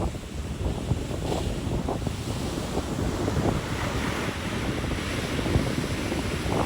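Ocean surf washing on a beach, with wind buffeting the microphone as a steady low rumble. A wave's wash swells up around four seconds in.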